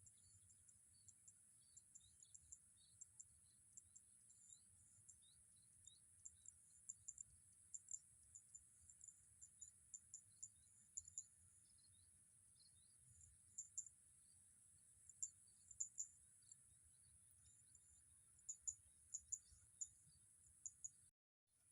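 Faint steady high-pitched drone of insects with many short, scattered high chirps over it. The sound cuts out briefly near the end.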